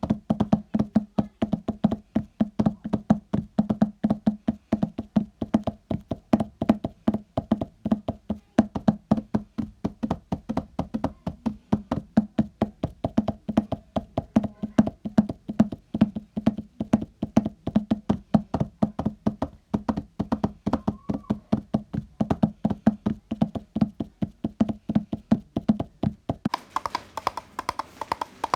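Homemade imitation of horse hooves: a fast, continuous run of hollow knocks in a galloping clip-clop rhythm. Near the end the clopping changes to a brighter, hissier sound.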